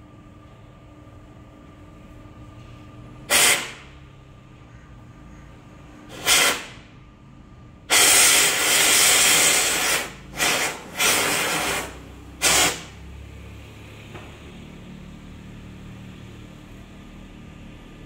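Teddy bear stuffing machine blowing fibre fill with compressed air. It gives loud hissing blasts: two short ones, a long one of about two seconds, then three shorter ones in quick succession, over the machine's steady hum.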